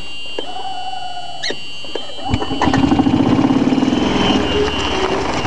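Club Car golf cart engine starting about two seconds in as the pedal is pressed, then running hard with a fast, even pulsing while the cart tries to drive up a ledge.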